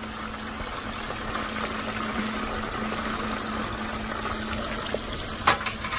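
Flour-and-cornstarch-coated chicken deep-frying in a pan of hot oil, a steady bubbling sizzle. A couple of sharp clicks sound near the end.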